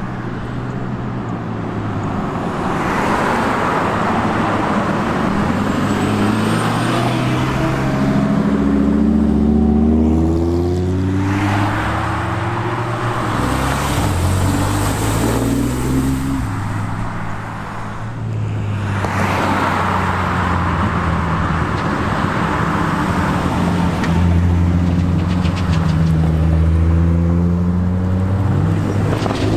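Cars driving past one after another, engines and exhausts running loud. Their engine notes rise as they accelerate, in about three swelling passes.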